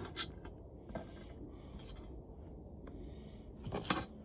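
Faint handling noise from dismantling an old TV: a couple of light clicks early, one about a second in, and a short clatter of parts near the end.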